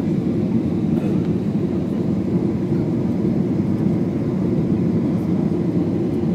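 Steady, even engine and airflow noise inside the cabin of a low-wing jet airliner descending to land.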